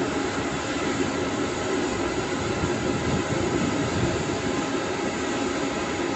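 Twin-engine wide-body jet airliner's engines running with a steady rumble and a faint steady whine as it moves slowly on the runway.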